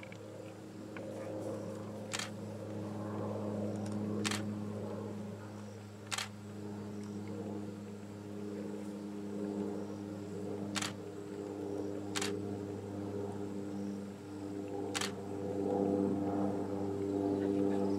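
Camera shutter clicks, six single shots spaced one to four seconds apart, over a steady low hum.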